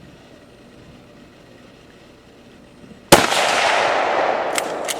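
A single sudden loud blast about three seconds in, followed by a rolling rumble that dies away over about two seconds, with two small ticks near the end: a shot or Tannerite detonation at a washing-machine target.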